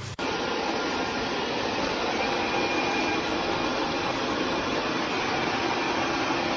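A vacuum motor running steadily: an even rushing noise with a faint high whine, starting abruptly just after the beginning.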